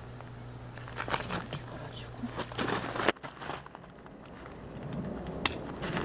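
Hands working a car-side tent's fabric and strap: short bursts of rustling and scraping, then a single sharp click a little before the end.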